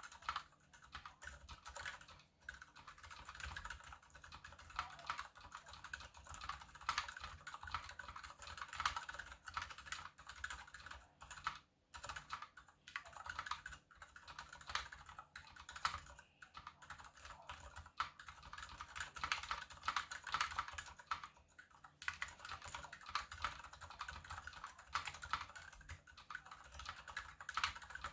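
Continuous fast typing on a KBD75 mechanical keyboard with unlubed Gateron Silent Brown switches, a brass plate and PBT DSA keycaps: a steady stream of key clacks with a few brief pauses.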